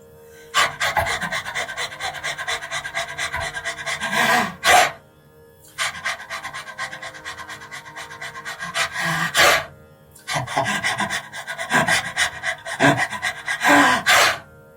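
A man panting rapidly with his tongue out, like a dog, as a breathing exercise: three bouts of quick breaths, each about four seconds long and ending in a longer, louder breath, with short pauses between.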